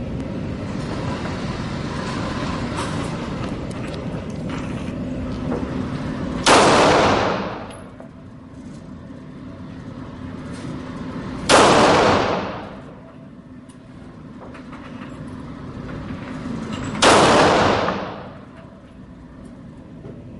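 Three single gunshots about five seconds apart, each followed by a ringing echo that fades over about a second.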